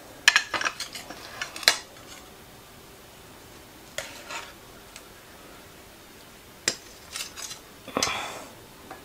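Serving spatula clinking and scraping against a baking dish and plates as baked cod portions are lifted out and set down: a quick run of clicks in the first two seconds, a single clink about four seconds in, more clatter around seven seconds and a short scrape about eight seconds in.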